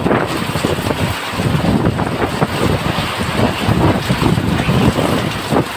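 Heavy rain falling steadily, with gusts of wind buffeting the microphone.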